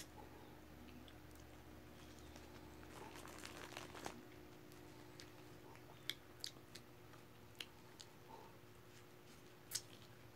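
Faint chewing of a soft milk candy, then a thin plastic candy wrapper being peeled open, crinkling with a few sharp crackles. A faint steady hum lies underneath.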